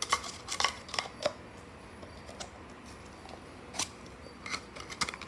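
Scattered sharp plastic clicks and knocks as a toy RC car and its packaging are handled: a few near the start, a lull, then more clicks near the end.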